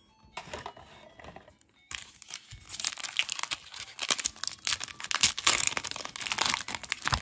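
Foil wrapper of a Pokémon card booster pack crinkling and tearing as it is opened by hand. It is fairly quiet at first, then dense crackling from about two seconds in.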